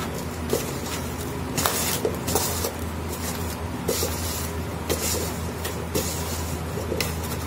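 A hand mixing boiled cauliflower florets with gram flour and rice flour in a steel bowl: irregular short rustling noises over a steady low hum.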